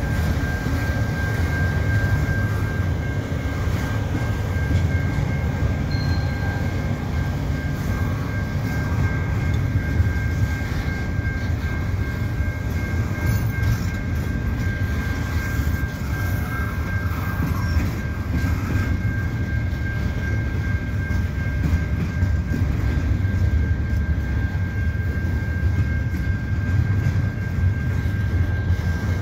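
Double-stack container well cars of a long freight train rolling slowly past: a steady low rumble of wheels on the rails. Over it the level-crossing warning bell rings as a steady high tone.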